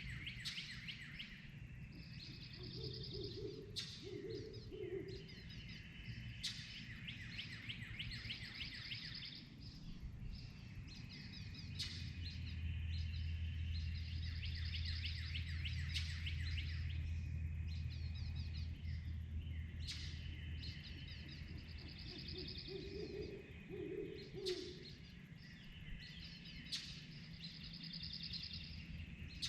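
Dawn chorus of songbirds repeating trilled songs, with an owl hooting in two short series of about three hoots, a few seconds in and again past the middle. A low steady rumble rises under the birdsong in the middle.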